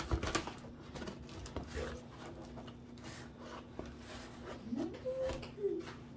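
Hand rubbing and knocking on a corrugated cardboard box, then a knife blade scraping and cutting at the packing tape along the box's seam in short scratchy strokes, with a sharp knock just after the start.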